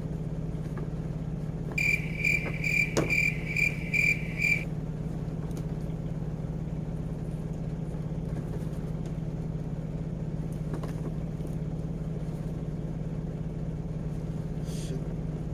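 A steady low hum, with a high pitched chirp repeated about three times a second for about three seconds near the start, and a few faint clicks from handling the toy's box.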